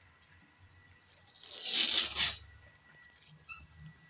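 Gift wrapping paper being ripped off a box: a quiet start, then one long tearing rip of about a second beginning a second in, followed by faint rustling.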